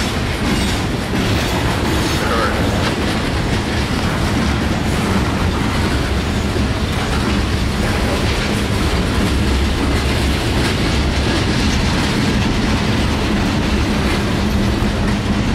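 Freight train's open-top hopper cars rolling past close by: steady, loud noise of steel wheels on rail.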